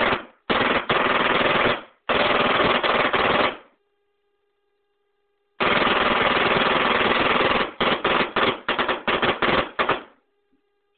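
Ariakon Sim 4 paintball marker firing on full auto, about 20 shots a second: three quick bursts, a pause of about two seconds, one long burst, then a string of short bursts near the end.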